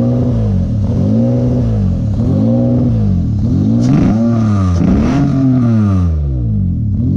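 Honda J35 3.5-litre V6 running just after a fresh start, its revs surging up and down about once a second in a hunting idle, with one bigger swing near the middle. The engine turned out to have a couple of vacuum leaks, the usual cause of such a surging idle.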